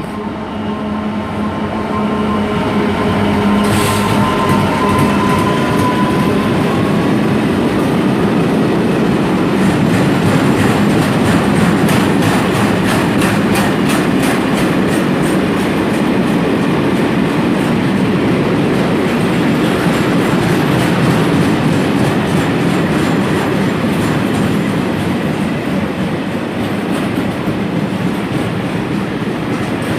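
Class 66 diesel locomotive hauling a long car-carrier freight train through the station: a steady engine drone over the first few seconds, then the wagons rolling past with a fast run of wheel clicks over the rail joints, easing off near the end.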